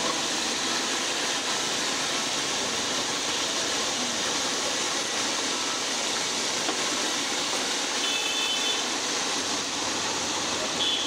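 Hot oil sizzling steadily as masala-coated chicken pieces deep-fry in a large kadai.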